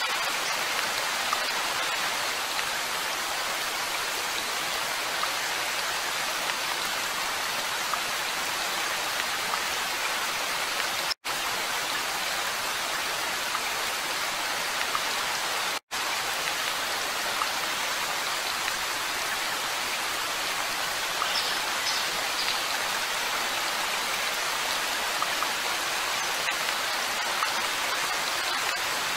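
Steady hiss of rain with faint scattered drop ticks, cutting out for an instant twice midway.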